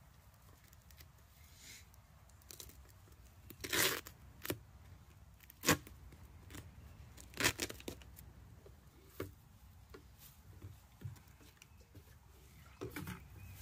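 Scattered crackles and crinkles of a plastic water jug and sap tubing being handled, the tubing worked loose from the jug's cap, with a few sharper cracks about four, six and seven and a half seconds in.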